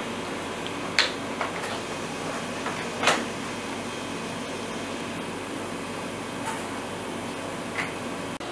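A few light clicks and rattles of hands handling wiring and plastic parts inside a fan heater, the loudest about three seconds in, over a steady background hiss.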